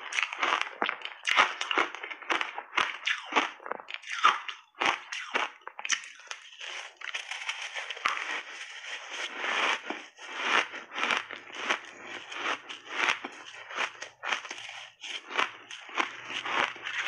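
Frozen mixed-berry ice chunks coated in matcha and milk powder crunching as they are bitten and chewed: a dense run of irregular, sharp cracks with a short lull about five seconds in.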